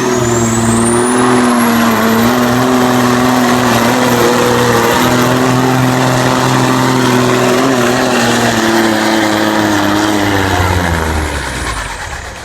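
1994 Kenworth semi truck's diesel engine running hard under full load on a truck pull, steady and loud, with a high whine that climbs steeply in the first second and then holds. Near the end the engine and whine die down as the pull ends.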